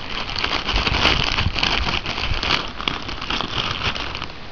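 Plastic packaging crinkling and rustling as it is handled, a dense run of fine crackles that eases off near the end.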